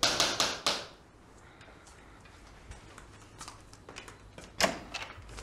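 Quick knocks and clicks in a small room: a cluster of about four sharp knocks at the start, then scattered light clicks, and one sharper knock with a low thud about four and a half seconds in.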